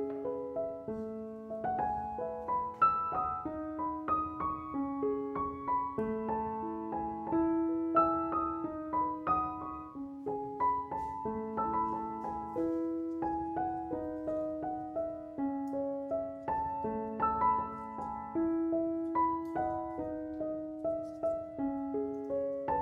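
Background piano music: a gentle melody of single notes over a repeating accompaniment at a steady pace.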